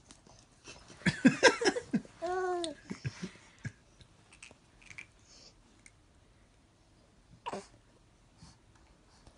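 A baby's excited vocalizing: a burst of shrieks and squeals about a second in, then one drawn-out squeal that rises and falls in pitch. Another short squeal comes near the end.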